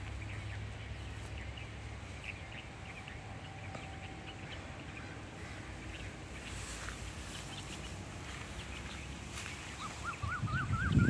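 Small birds chirping now and then over a steady outdoor background, with a wavering, repeated bird call starting near the end. Just before the end a louder low sound comes in.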